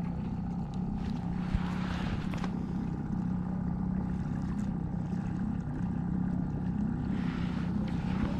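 Boat motor running steadily with an even hum, with two brief swishing noises, about a second in and again near the end.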